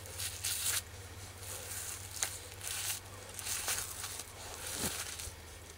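A knife cutting and a deer's hide being pulled away from the carcass during skinning: a few short rasping tears at irregular intervals.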